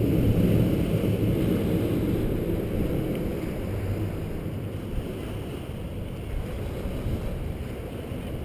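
Distant jet roar from a Blue Angels F/A-18 Hornet climbing away, a low rumble that fades slowly, with wind on the microphone.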